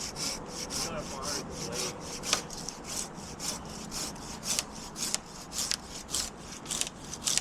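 Hand saw cutting through a maple limb in steady back-and-forth strokes, about three a second.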